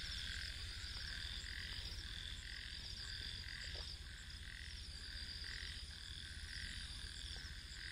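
Faint chorus of frogs croaking, a call repeating about twice a second, over a steady high trilling of insects.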